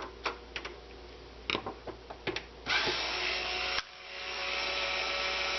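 Small power-tool motor, such as an electric screwdriver, backing out the console's case screws: a few light clicks, then the motor runs for about a second, stops suddenly, and spins back up to run steadily.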